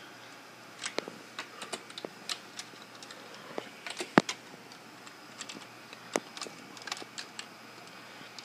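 Computer keyboard keys pressed one at a time at an irregular pace: scattered separate clicks, with one sharper click about four seconds in.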